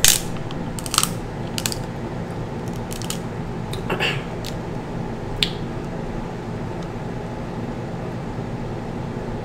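Cooked crab leg shells cracking and snapping as they are broken open by hand and teeth and the meat is eaten, with several sharp cracks in the first half, over a steady low hum.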